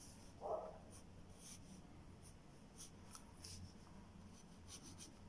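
Faint scratching of a graphite pencil drawing short, irregular strokes on paper, with a brief muffled sound about half a second in.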